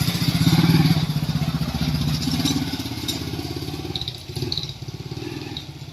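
Vehicle engine running at low road speed with an even pulsing beat, loudest about a second in, then easing off.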